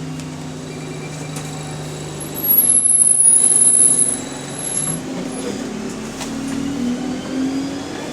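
Bus running, with a loud, high-pitched squeal for about a second and a half, starting about two and a half seconds in, from the bus's worn door hinges. Near the end the engine and Voith gearbox note rises as the bus pulls away.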